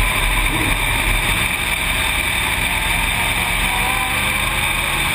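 Dirt-track race car's V8 engine running hard under racing load, heard from inside the cockpit as a steady, loud mix of engine and wind noise.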